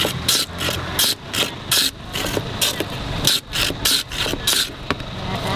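A block of ice scraped back and forth over the blade of a wooden hand ice-shaving box, shaving ice in rhythmic rasping strokes about two to three a second. The strokes stop shortly before the end.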